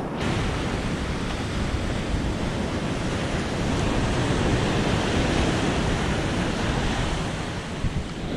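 Ocean surf breaking and washing up a sandy beach, a steady wash of noise, with wind buffeting the microphone and adding a low rumble.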